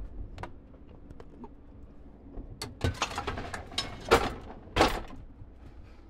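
Dishwasher wire racks and their load being handled: a run of rattles, clicks and knocks, loudest in a few clatters about halfway through.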